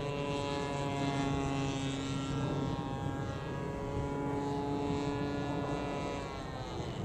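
Engine and propeller of a 106-inch Hangar 9 Piper Cub radio-control plane running in flight. It gives a steady buzzing note that drops in pitch near the end.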